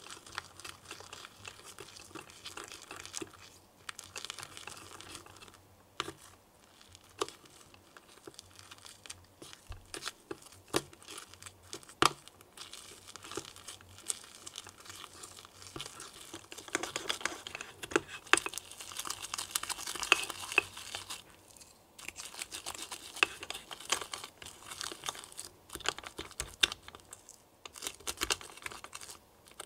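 Thick white slime stirred and folded with a small wooden stick in a small glass bowl: sticky, crackling squelches with many sharp clicks, busiest a little past halfway, followed by a brief pause.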